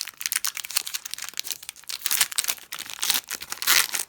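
Foil Pokémon booster pack wrapper crinkling as it is handled and torn open, with a louder rip about three and a half seconds in.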